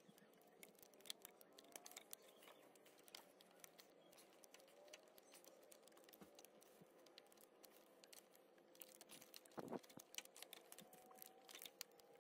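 Faint, scattered clicking and rustling of plastic electrical connectors being squeezed at their locking tabs and pulled off a 2001 Eurovan's electric radiator cooling fan motors, over a faint steady hum, with one slightly louder sound about ten seconds in.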